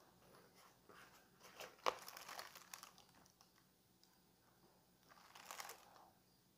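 Paper liner of a fried-chicken bucket and a plastic carry bag crinkling as hands open and handle them. The crinkling comes in two bouts, one about two seconds in with a sharp crackle at its start, and a second near the end.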